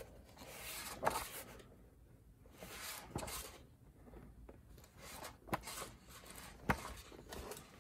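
Pages of a hardback book being turned one after another: about four papery swishes, each ending in a sharp flap of the page.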